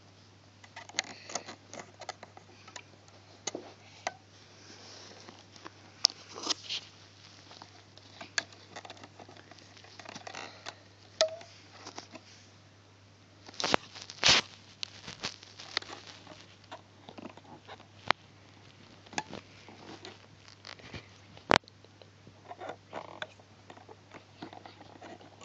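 Fingers handling rubber loom bands on the pegs of a plastic Fun Loom: irregular soft scratching and small clicks, with a few sharper clicks, over a steady low hum.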